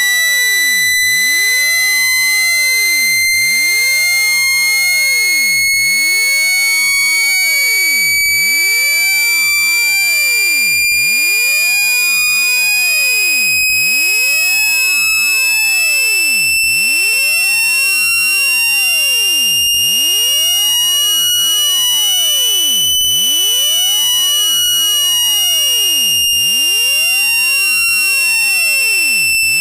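Synthesized water-eject tone for clearing water from a phone speaker: a steady, loud, buzzy electronic tone that slowly rises in pitch, peaks about three-quarters of the way through, then dips slightly.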